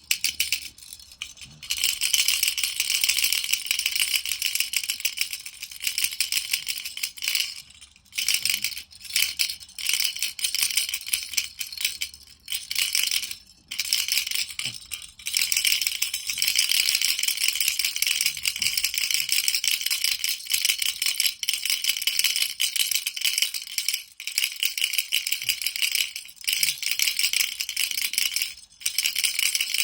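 Baby rattle shaken continuously, a dense high-pitched rattling of small beads in a hollow toy, with brief pauses every few seconds.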